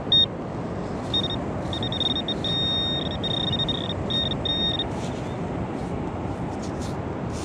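Handheld metal-detector pinpointer beeping in high-pitched tones as it is probed through a pile of dug beach sand, homing in on a buried coin. The beeps come short at first, then longer and nearly continuous, and stop about five seconds in.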